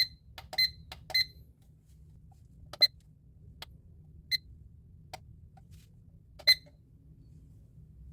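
IKEA PLUGGET digital alarm clock beeping as its buttons are pressed: six short, high beeps, three in quick succession at the start and then three spaced a second or two apart, with a couple of fainter clicks between.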